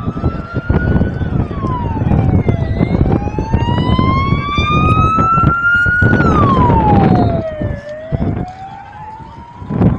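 Emergency vehicle siren in a slow wail, rising over a few seconds and dropping more quickly, repeating about every five seconds, over loud rumbling noise with scattered knocks.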